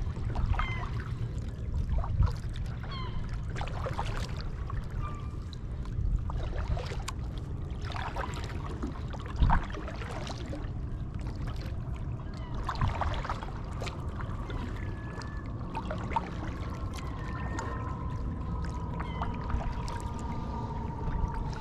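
Kayak paddle strokes: the blade dipping and splashing, with water dripping and trickling off it between strokes, over a steady low rumble. A few short high chirps come through, and a steady whine comes in over the last few seconds.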